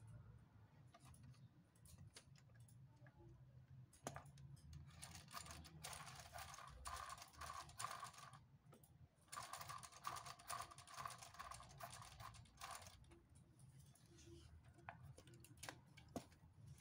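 Plastic LEGO Technic drivetrain gears and differential clattering as a rear wheel is spun by hand. There are two spells of fast rattling, each a few seconds long, with a short pause between them, and a few single clicks of plastic parts being handled.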